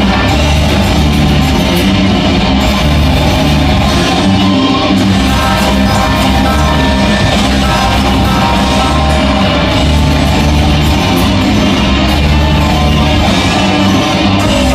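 Live band playing loud heavy metal, with guitars and a singing or shouting voice over a dense, unbroken wall of sound.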